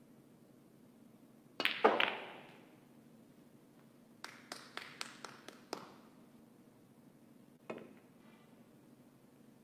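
Snooker break-off: the cue strikes the cue ball hard, then a quick run of sharp clicks as the cue ball hits the pack and the reds knock into each other and scatter. One more single click comes near the end.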